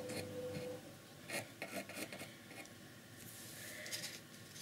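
Faint scratching and rubbing of a pencil sketching outlines on a painted wooden box, in a few short strokes.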